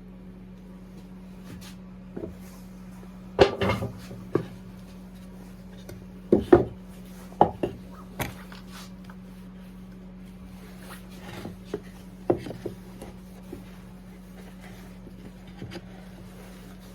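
Wooden birdhouse parts and tools being handled and set down on a workbench: scattered knocks and clatters, loudest about three and a half and six and a half seconds in, over a steady low hum.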